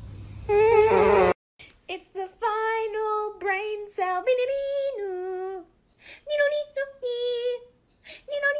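A high voice sings a simple melody in short phrases of held notes that step up and down, with brief pauses between phrases. It is preceded by a loud wavering hum that cuts off suddenly about a second in.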